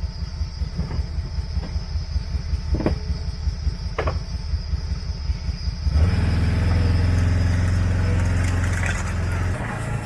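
A motor vehicle's engine running with a steady low rumble, which gets louder and fuller about six seconds in, as if it is pulling away or speeding up. A thin steady high drone, like insects, sits behind it in the first part.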